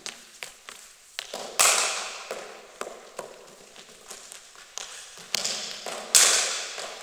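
Two sharp cracks of a cricket ball striking a bat, about one and a half and six seconds in, each ringing out in a reverberant sports hall, with lighter knocks scattered between.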